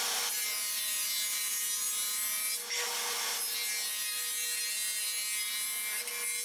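Table saw running and cutting a shallow groove, about 1/4 inch deep and 3/4 inch wide, into 3/4-inch Baltic birch plywood as the panel is pushed over the blade. It is a steady whine with cutting noise, dipping briefly a little under three seconds in.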